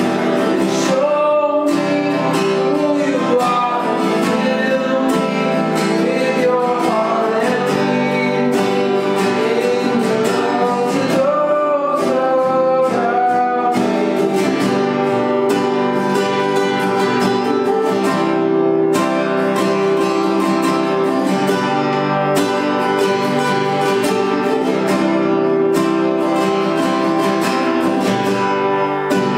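Two acoustic guitars strummed together while two men sing a song, continuously.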